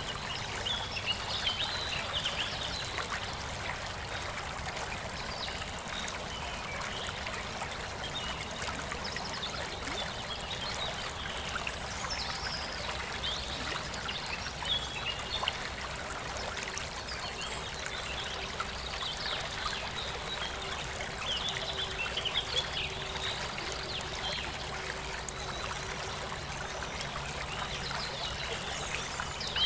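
Steady trickling, running water like a small stream, with scattered high chirps over it.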